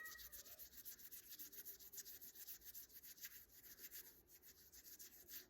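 Faint skin-on-skin rubbing: a hand being massaged with quick, repeated strokes, which stop just before the end.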